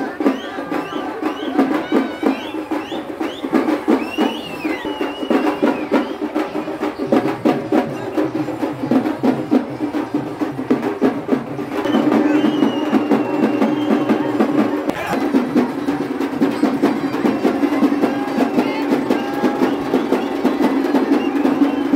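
A temple-festival percussion ensemble drumming fast and loud in dense, rapid strokes, with shrill rising calls over it in the first few seconds.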